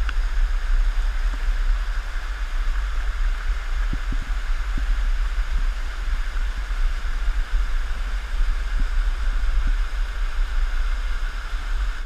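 Waterfall water rushing and splashing over rock cascades, heard close up: a steady hiss with a deep low rumble underneath.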